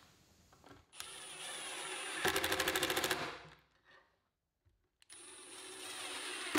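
Milwaukee M18 cordless impact driver driving a 1¼-inch screw into plywood. The motor spins up with a rising whine, then the hammer mechanism clatters rapidly for about a second as the screw seats, and stops. Near the end a second screw starts, the motor spinning up again.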